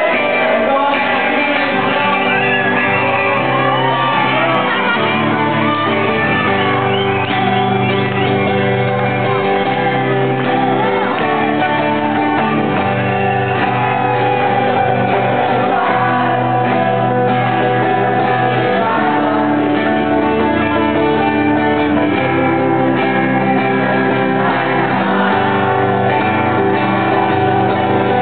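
Live band playing a rock ballad: a singer over guitar, with a bass line that changes note every second or two.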